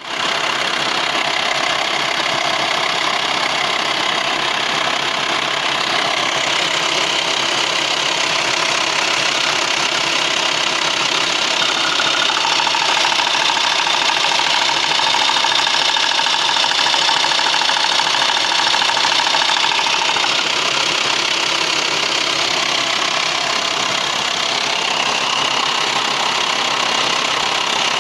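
VW T5's 2.5 TDI AXD five-cylinder diesel engine running steadily at idle with a clattering noise, which the owner finds worst when the steering wheel is turned. A higher whine joins about twelve seconds in and drops away about twenty seconds in.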